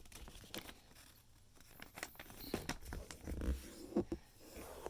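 A square sheet of origami paper being turned over and folded along an existing crease: light rustling and crinkling with scattered sharp taps and a few soft thumps, the loudest about four seconds in.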